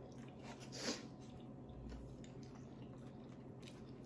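Quiet eating and mouth sounds, with one short, louder wet mouth noise about a second in, from someone eating a very spicy fried chicken sandwich. A faint steady low hum runs underneath.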